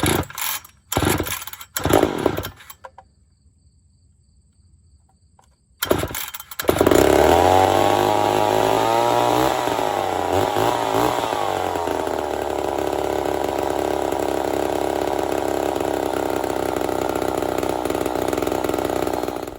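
Ported Poulan 245A two-stroke chainsaw: a few short loud bursts, then a pause. About six seconds in, it starts and runs at high revs, its pitch wavering and climbing for a few seconds before holding steady and loud. It stops abruptly near the end.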